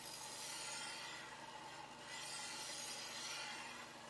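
Knife blade pressed against the running 120-grit ceramic belt of a belt grinder, giving a rasping grind in two passes of about two seconds each over the grinder motor's steady hum. The grind widens the bevel back onto the knife's soft stainless cladding.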